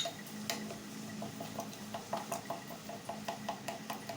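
A utensil clicking against a mixing bowl in a steady rhythm, about five strokes a second, while pancake batter is stirred.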